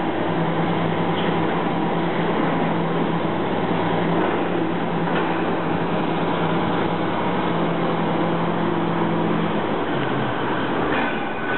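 Diesel engine of heavy demolition machinery running steadily at a constant note that shifts about ten seconds in, with a few faint knocks of debris.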